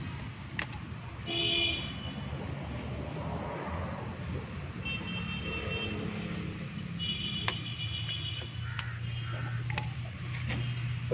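Background road traffic: a steady low rumble of vehicles with several short horn toots, the loudest about a second and a half in. A few sharp clicks of small metal brake parts being handled sound up close.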